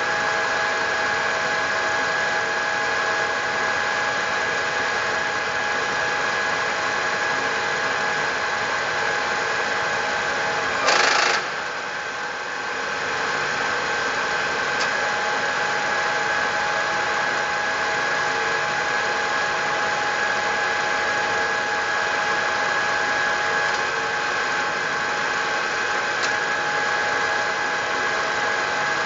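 Milling machine running steadily with a constant whine. About eleven seconds in there is a brief loud noisy burst, and then the sound drops a little for a second or two before settling back.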